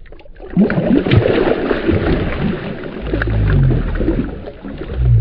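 Water splashing and churning as a released channel catfish thrashes free of the hand and swims off in shallow water, with a low rumble about three seconds in.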